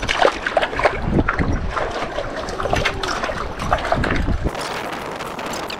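Wind buffeting the microphone as a low rumble that drops away about four and a half seconds in, over scattered short clicks and small splashes.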